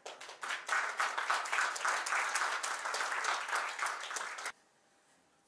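Audience applauding: a dense patter of many people's hand claps that stops suddenly about four and a half seconds in.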